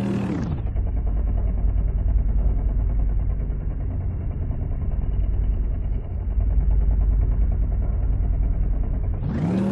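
Lathe knurling: a pair of knurl wheels rolling a diamond knurl into a spinning metal workpiece, its sound slowed down with the picture. The pitch slides down into a low rumble with a fast rattle, then glides back up near the end.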